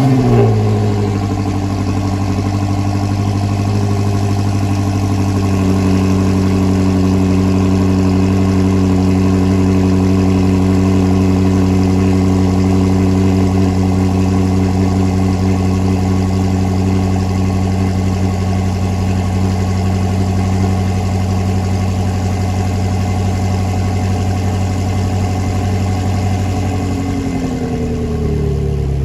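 Twin-turbocharged BMW M Competition engine just after starting: a short rev flare at the very start, then a steady fast idle. The idle settles a little lower over the first few seconds and drops again near the end.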